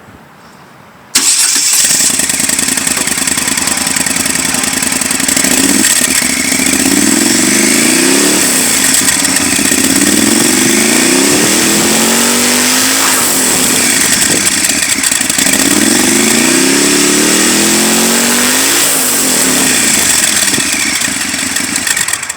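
Moto Guzzi Stelvio 1200's V-twin engine running through its exhaust. It comes in abruptly about a second in, idles, then is revved up and let fall back several times.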